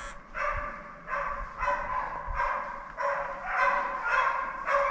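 Deer-hunting hounds barking in a steady run of short calls, about two a second: the dogs giving voice as they run a deer's track.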